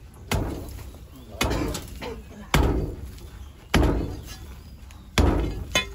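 A long-handled digging tool striking packed, ashy earth in repeated blows, about one a second, six strikes in all, the last two close together, knocking loose soil.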